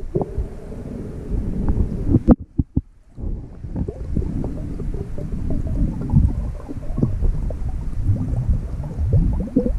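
Muffled underwater sound from a camera held under river water: a low rumble of moving water with irregular clicks and knocks. A cluster of sharp knocks comes a little over two seconds in, followed by a brief quieter stretch.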